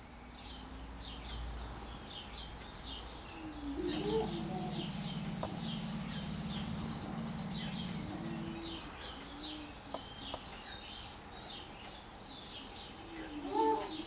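Male greater prairie-chickens displaying: low booming and whooping calls, loudest about four seconds in and again near the end, over a steady chatter of small songbirds.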